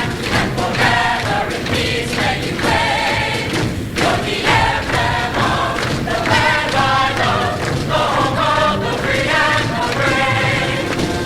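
Show choir singing in harmony over instrumental accompaniment.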